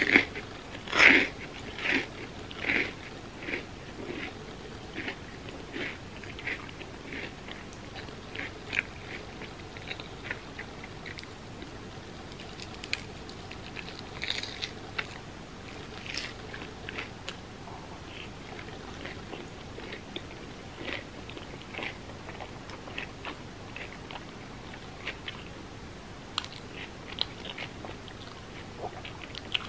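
Close-up chewing of crispy mochi fried bread: a loud crunchy bite about a second in, then steady rhythmic crunching chews that grow softer and sparser.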